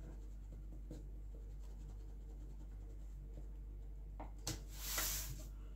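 Quiet kitchen room tone with a low hum, then a brief scratchy rustle about four and a half seconds in, as a mug is scooped into a bag of flour.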